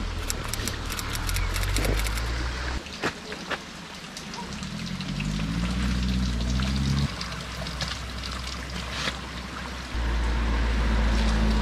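Water pouring and trickling from the spout of a stone roadside spring fountain, with a bottle being filled under it. A low hum comes and goes underneath, with a few light clicks.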